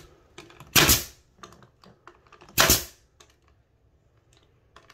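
18-gauge brad nailer firing twice, about two seconds apart, each shot a sharp crack as it drives a fine finishing brad through quarter-round molding.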